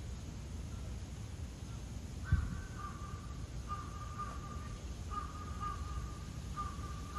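A crow cawing four times at an even pace, starting about two seconds in, each caw drawn out. A brief low thump comes just as the first caw begins.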